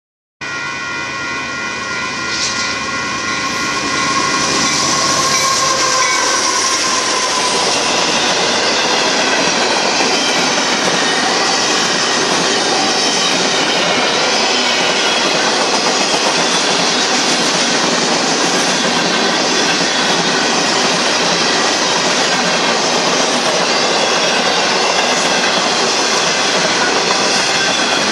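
Union Pacific freight train of empty intermodal flatcars rolling past, a loud steady noise of wheels on rail and rattling empty cars. Several steady high tones sound over the first few seconds, then fade into the rolling noise.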